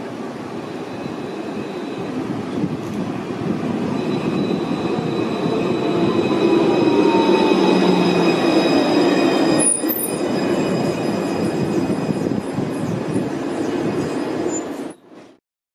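Alstom Citadis 302 light rail tram pulling into a platform: its running noise grows louder as it draws alongside, with thin high steady tones over it and a falling whine as it slows. The sound cuts off suddenly near the end.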